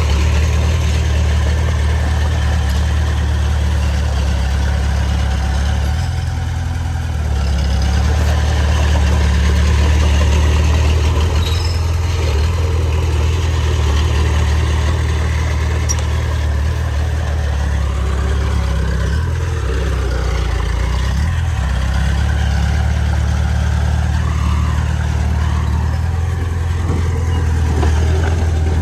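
Heavy diesel earthmoving engine running steadily, its note shifting briefly about six seconds in and again near the twenty-second mark.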